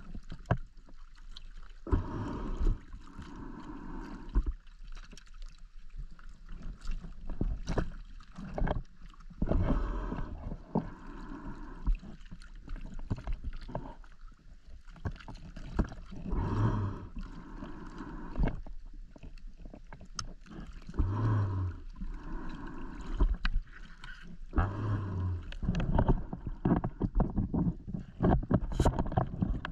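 Water splashing and sloshing in irregular bursts every few seconds, with scattered knocks and clicks.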